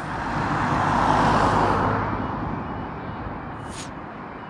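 A car driving past close by, its tyre and engine noise swelling to a peak about a second in, then fading as it moves away.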